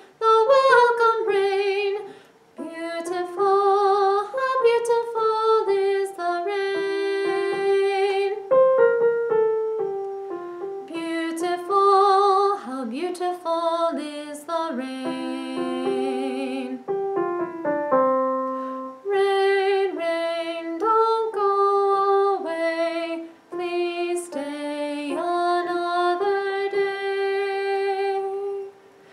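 A woman singing a choral melody with vibrato over piano accompaniment.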